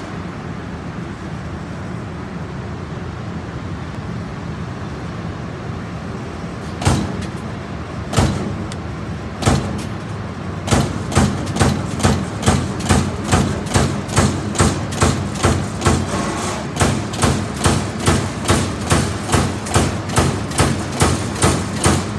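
1990 Amada Pega 357 turret punch press running with a steady hum, then punching. Three single hits come about seven, eight and nine and a half seconds in. About eleven seconds in, a fast, even run of punch strokes starts, two to three a second.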